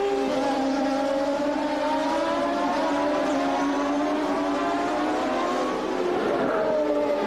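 Several open-wheel race cars running at high revs together, their engine notes gliding and slowly rising in pitch as they accelerate.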